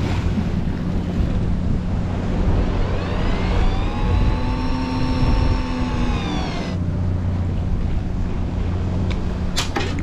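Fishing boat's engine droning steadily under the rush of heavy swell and wind on the microphone. From about three to seven seconds in, a whine rises and falls, then cuts off suddenly.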